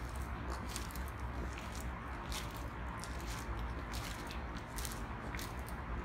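Footsteps crunching on a fine gravel path at a walking pace, roughly two steps a second, over a steady low rumble.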